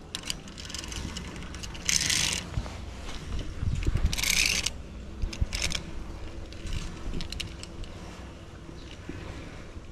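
Metal clicking and rattling of zip-line harness gear: carabiners and a pulley trolley handled and sliding on a steel safety cable. Two brief hissing bursts come about two and four seconds in, over a steady low rumble.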